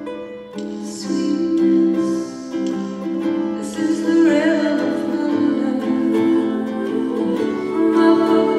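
A woman sings live to her own ukulele chords. Her voice wavers with vibrato on a held note about four seconds in.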